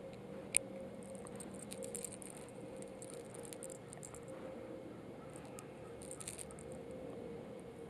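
Faint small metallic clicks and ticks of split-ring pliers working the split ring and treble hook on a small minnow lure, with one sharper click about half a second in.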